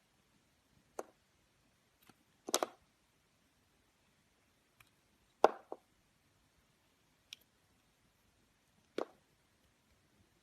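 Slime being handled, giving a handful of separate wet plops and clicks with silence between them; the loudest come about two and a half and five and a half seconds in.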